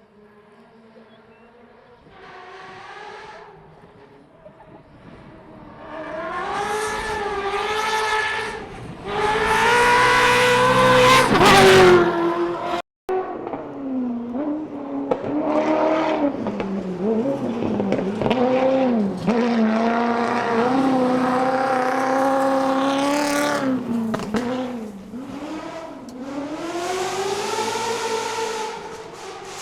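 Ferrari V8 engine in a Subaru Impreza rally car revving hard as the car drives past, its pitch climbing and dropping with gear changes and throttle lifts. It builds from faint to loudest about ten seconds in, cuts out for a moment, then revs up and down again and peaks once more near the end.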